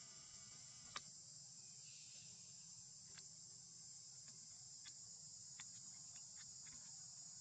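Steady, high-pitched chorus of insects, crickets or cicadas, with a few faint sharp clicks, the clearest about a second in.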